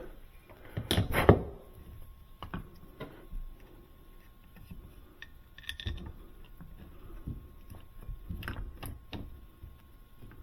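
Metal refrigerator hinge bracket and screws being handled and fitted by hand: scattered clicks and clanks, the loudest cluster about a second in.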